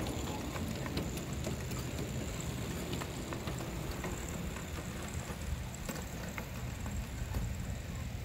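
Ride-on scale diesel-outline locomotive running along the track, a steady low rumble with scattered sharp clicks of its wheels on the rails.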